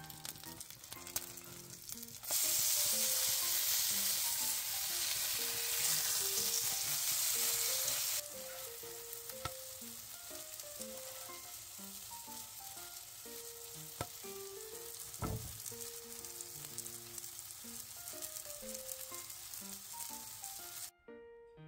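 Pancake batter frying in oil in a frying pan, sizzling steadily. About two seconds in, the sizzle turns much louder for about six seconds, then settles back to a lower hiss with a few sharp ticks.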